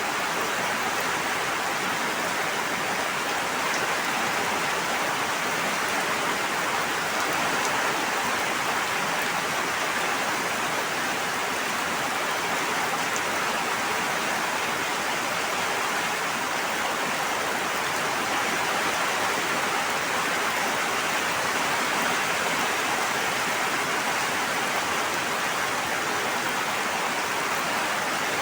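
Steady, even rush of water, unchanging in level throughout.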